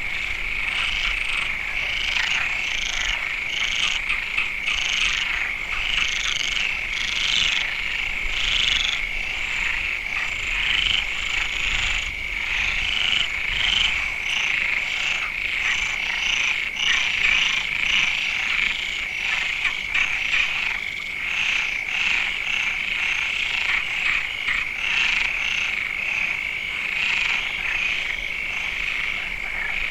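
Dense frog chorus: many frogs calling at once in a continuous, overlapping din, with a steady high drone under countless short rapid calls.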